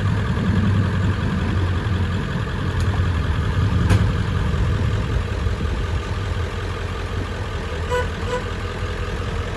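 A dump truck's engine idling steadily, hitched to a smoker trailer, with one sharp click about four seconds in.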